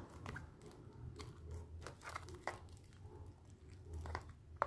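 Faint, irregular sticky clicks and squelches of slime made from moldable foam clay, water and soap being stirred.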